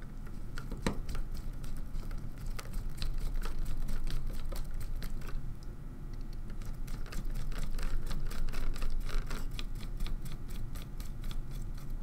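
Small screwdriver turning little screws into plastic standoffs to fasten a circuit board: rapid, irregular clicking and ticking, with a steady low hum underneath.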